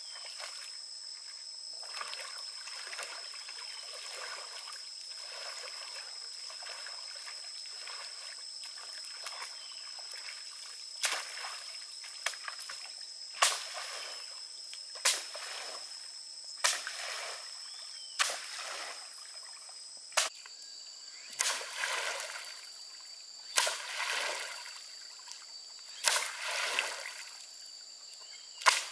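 Water sloshing as a person wades waist-deep through a lake, then from about a third of the way in, sharp splashes every second or two as a bamboo pole is jabbed down into the water. A steady high-pitched insect drone runs behind.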